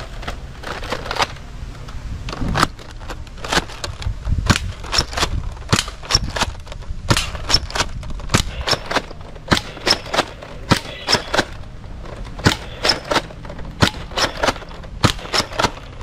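Toy gun firing shot after shot: sharp cracks at an uneven pace of about one to two a second, over a steady low rumble.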